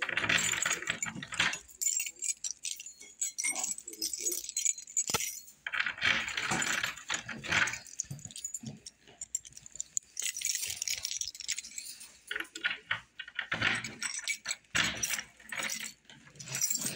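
Irregular jangling and clinking of small metal objects in short bursts, with rattling in between and short pauses.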